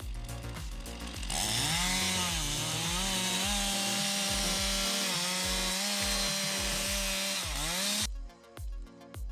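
Chainsaw engine running at high revs while cutting wood, its pitch dipping and recovering as it bogs in the cut, then stopping about eight seconds in. A steady bass beat of background music runs underneath.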